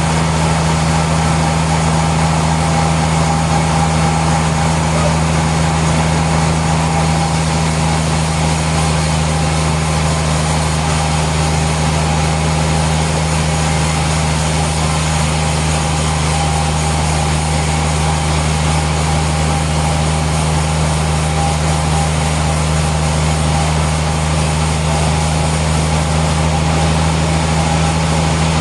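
Sawmill machinery running steadily: a constant low hum with a steady higher tone over an even mechanical din, unchanging throughout.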